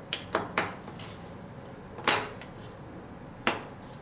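Hard plastic toy padlocks clacking on the table and against each other as they are handled and set down: three quick knocks right at the start, another about two seconds in, and one more near the end.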